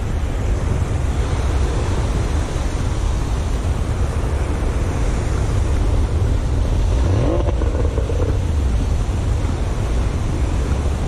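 Wind rumbling on the microphone over surf breaking on the beach, with a short rising tone about seven seconds in.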